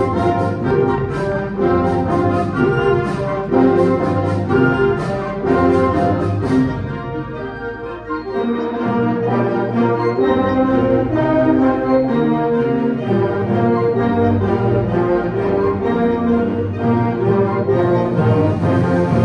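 A full concert band of brass, woodwinds and percussion playing live: sharp percussion accents over the first several seconds, a brief easing about seven seconds in, then sustained full-band chords with heavy low brass.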